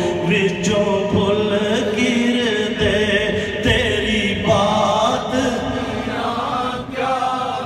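A gathering of voices chanting a devotional refrain together, several voices overlapping in a sung, drawn-out recitation.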